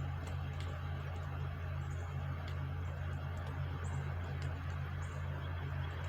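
A steady low hum with faint, scattered light ticks over it.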